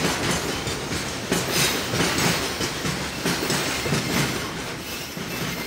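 Container freight train's loaded flatcars rolling past, the wheels clattering over the rail joints in a steady rumble, easing slightly near the end as the last wagons go by.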